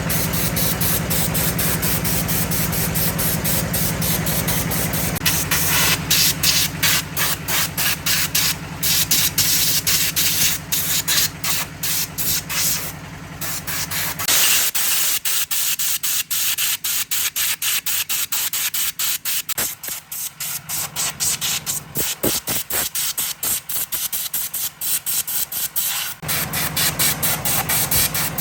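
Hissing spray in many short, quick bursts over a steady machine hum; the hum stops about halfway through and comes back near the end.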